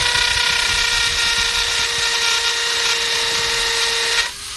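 Power drill with a masonry bit boring slowly into hard, old concrete. The motor runs with a loud, steady whine over a grinding hiss, and the whine drops away near the end.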